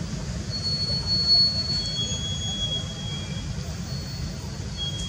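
Outdoor background noise: a steady low rumble under thin, high-pitched steady tones that come and go every second or two.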